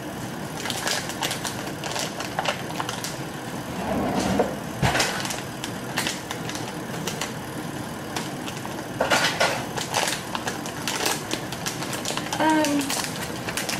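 Plastic bag of popping corn being worked open by hand: irregular crinkling and crackling, loudest about nine seconds in.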